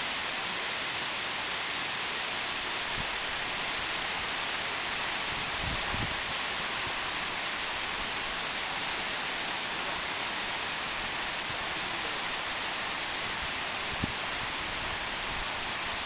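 Tall waterfall cascading down stepped rock faces: a steady, even rush of falling water.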